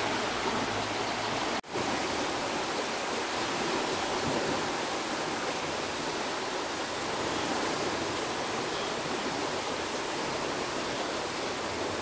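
Running water rushing steadily. It drops out for a moment about a second and a half in, then carries on unchanged.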